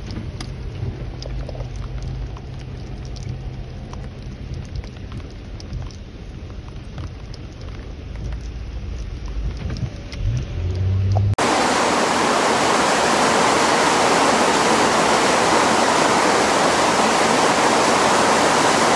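Rain ticking on a surface over the low steady hum of an idling vehicle engine. After a cut about eleven seconds in, loud steady rushing of flowing rainwater.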